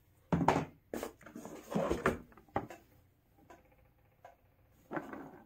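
Cardboard jigsaw puzzle boxes being handled: an irregular run of scrapes, rustles and knocks as boxes are lifted out of a cardboard shipping carton and shifted against one another. The loudest handling comes in the first two seconds.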